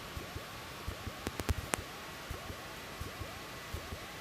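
Steady hiss of a light aircraft's cockpit intercom feed while taxiing, with faint rising chirps repeating several times a second and scattered short low thumps.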